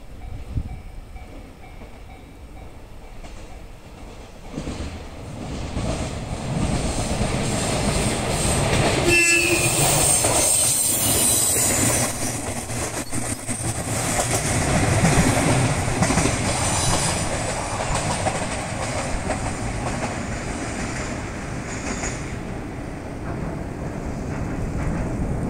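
JR KiHa 110 series diesel railcar approaching and running past close by, its wheels clattering over the rail joints, then drawing away. About nine seconds in it gives a short courtesy blast on its horn.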